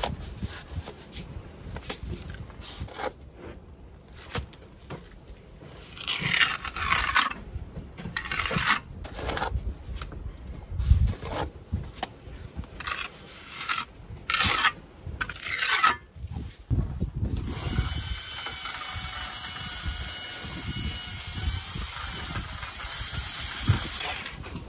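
Irregular scraping strokes of a hand tool working mortar against a granite stone wall. For the last several seconds a hand-held power tool runs steadily against the wall.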